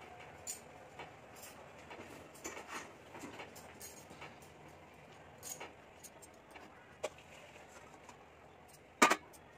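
Quiet kitchen handling: scattered faint clicks and light knocks of cookware. About nine seconds in comes a sharp double clank of stainless-steel cookware as a pot of blanched spinach is lifted over a steel bowl to be drained.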